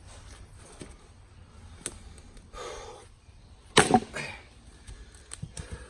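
Handling of wooden firewood pieces: faint clicks and rustles, then one sharp wooden knock about four seconds in, with a few smaller knocks after it.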